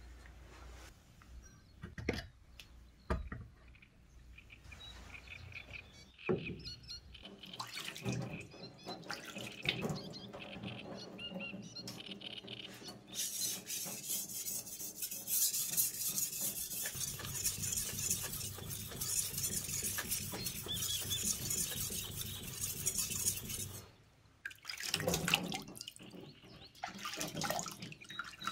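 Damascus cleaver blade being stroked by hand over a wet whetstone, a steady watery scrape for about ten seconds in the middle. A couple of sharp knocks in the first few seconds as the stone is set in its holder, and splashing water near the end.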